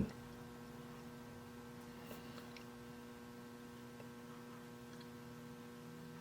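Steady faint electrical mains hum, with a couple of faint small clicks a little over two seconds in.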